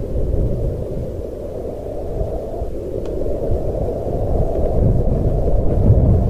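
Low, dark wind rumble with no pitch to it, swelling a little in the second half.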